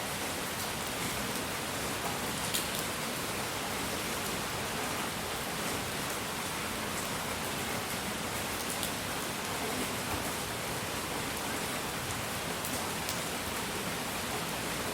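Steady, even hissing noise like rain, with a few faint sharp ticks scattered through it.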